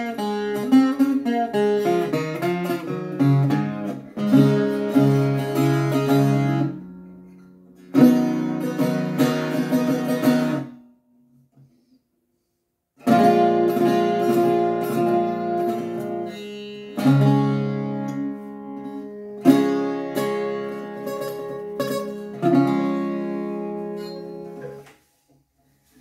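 Handmade Irish bouzouki, pitch pine top and maple back and sides, with its bottom two courses octave-strung, strummed in loud ringing chords. The playing stops for about two seconds near the middle, then goes on, and the last chord dies away shortly before the end.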